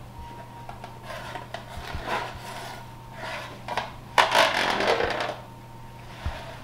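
Wide metal spatula scraping along the bottom of a metal baking pan as it works under a roasted butternut squash to lift it: a few short scrapes, then a longer, louder scrape about four seconds in.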